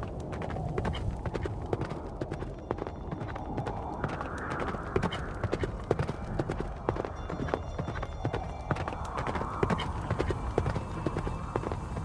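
Irregular clicks and knocks over a steady low rumble.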